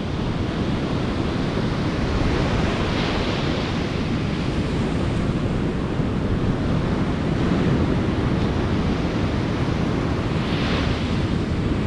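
Ocean surf breaking and washing in steadily, with wind rumbling on the microphone. The wash swells louder about three seconds in and again near the end.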